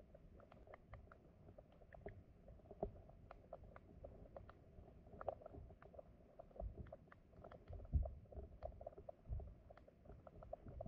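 Flowing stream heard underwater: a faint, muffled low rumble with many scattered small clicks and ticks, and a few low thumps about two thirds of the way through.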